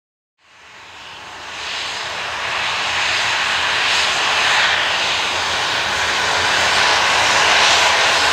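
Jet engine noise from a Ryanair Boeing 737-800's twin turbofans as the airliner rolls along the runway: a loud, even rushing whine that fades in over the first two seconds or so, then holds steady.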